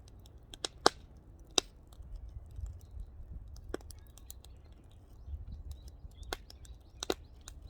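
Firewood fire burning, with sharp pops and cracks from the burning wood every second or two over a low steady rumble.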